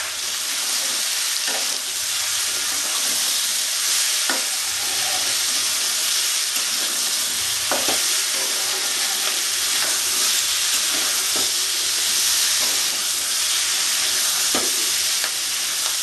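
Mixed vegetables frying in oil in a non-stick kadai: a steady sizzle as they are sautéed (kosha) with salt and turmeric. A metal spatula stirs them, scraping and knocking against the pan every few seconds.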